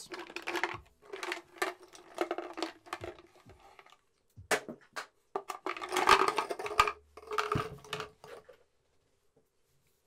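Irregular clicking and clattering of pens and pencils being handled on a desk, in several bursts, dying away near the end.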